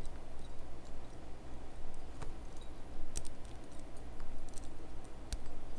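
Lock pick and tension bar working inside a small four-pin padlock: light metal scraping with a few scattered clicks as the pins are lifted, over a steady low hum.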